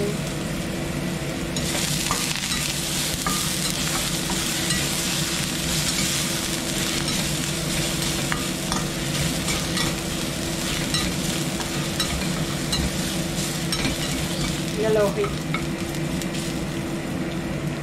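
Julienned ginger and minced garlic sizzling in oil in a stainless steel frying pan, stirred with a slotted spatula that clicks and scrapes against the pan. The sizzle grows louder about two seconds in, over a steady low hum.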